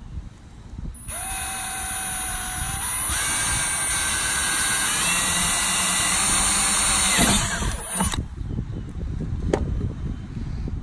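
Cordless drill/driver running for about seven seconds, driving a stainless steel pan-head sheet-metal screw through a seat base plate into the deck of an aluminum boat. The motor whine steps up in pitch early on, then drops slightly and stops suddenly.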